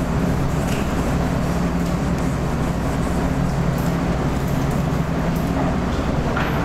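Steady droning hum of a window-type air conditioner running, with low steady tones under it. The faint rubbing of a whiteboard eraser comes and goes over it.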